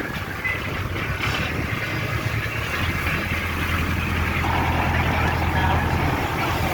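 An engine running steadily under a constant rushing noise; its low hum grows stronger about three seconds in.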